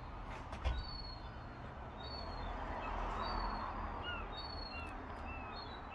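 A bird calling outdoors: a run of short, evenly repeated chirps, somewhat under two a second, over steady background noise that swells midway.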